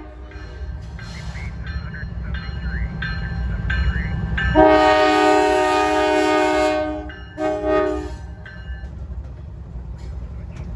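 Norfolk Southern diesel locomotive blowing its air horn for a grade crossing: one long blast of several pitches at once about halfway through, then a short blast, over the steady low rumble of the diesel engine.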